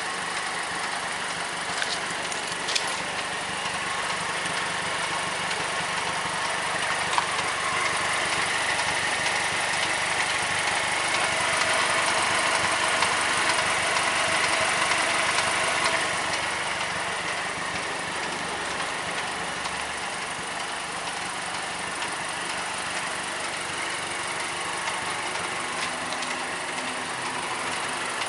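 Mazdaspeed 3's 2.3-litre turbocharged four-cylinder engine idling with a ticking noise. The engine grows somewhat louder for several seconds midway, then settles back.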